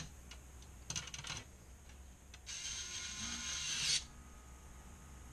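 A few sharp clicks as the fan and motor foot screws of a Mahlkönig K30 espresso grinder are set in place, then, about two and a half seconds in, a screwdriver drives a screw home with a rasping, ratcheting sound for about a second and a half.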